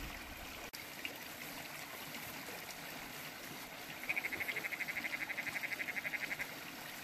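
A frog calling in a rapid pulsed trill, starting about four seconds in and lasting a little over two seconds, over a steady background hiss.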